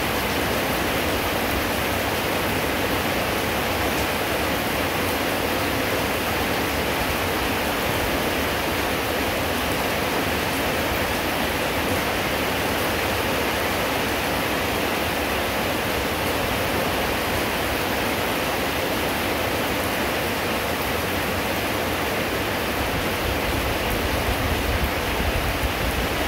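Steady rain falling, an even continuous hiss, with a low rumble joining in near the end.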